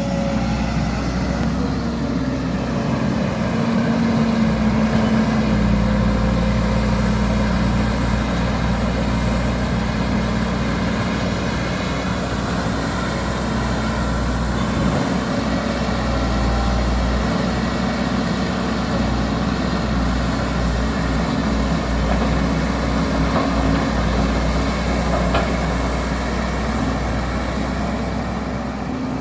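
Heavy diesel engine of an excavator running steadily as it digs and loads sand into a truck.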